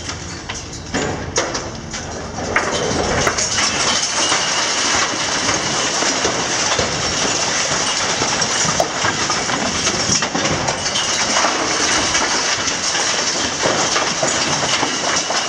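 Masonry rubble crashing and clattering down from a building being torn apart by a long-reach demolition excavator: a dense, continuous rattle of falling debris, with a few sharper knocks in the first few seconds.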